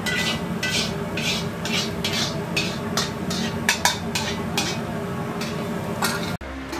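Metal spatula scraping and tossing food in a wok in a rhythmic run of strokes, about two to three a second, over a steady burner hum. The sound cuts off abruptly near the end.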